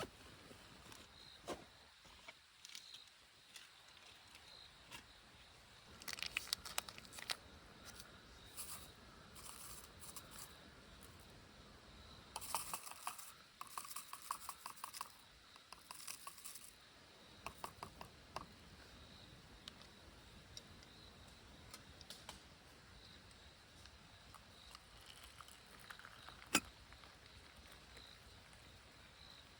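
Bursts of rustling, crinkling and light clinking, as things are handled, about six seconds in and again through the middle, with one sharp click near the end.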